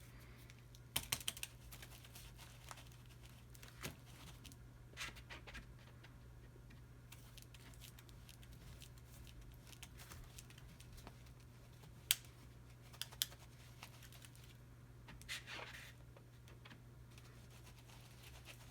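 Quiet paper-crafting handling: a scattering of light taps and clicks and a few short scratchy rustles of paper and tools as a stencil is tried out on a journal page, over a low steady hum.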